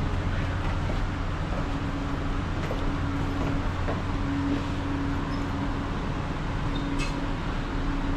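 Steady low machinery drone of a FastCat catamaran ferry's engines or generators, heard on its open-air deck. A hum tone fades in and out, and there is one short click about seven seconds in.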